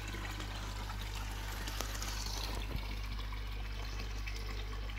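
Koi pond water running and trickling steadily, with a low steady hum underneath.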